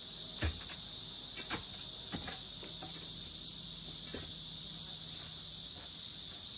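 A steady high-pitched insect chorus, with a few scattered knocks of hand tools striking stone and rubble; the first and loudest knock comes about half a second in.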